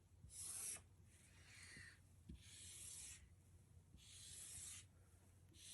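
Faint, soft rubbing sounds: about five short swishes, roughly one every second or so, over near silence.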